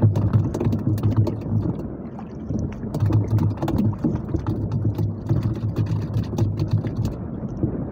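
Small outrigger fishing boat's engine running with a steady low hum, under wind and waves, with frequent sharp ticks.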